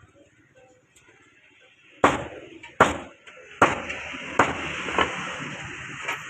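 Chicken being chopped: about five heavy chopping strikes, roughly one every 0.7 seconds, beginning about two seconds in. A steady hiss comes in behind the later strikes.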